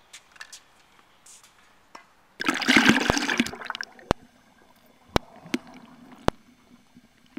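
A loud rush of water about two and a half seconds in, lasting about a second. Then comes muffled underwater sound: a steady low hum with three sharp clicks about a second apart.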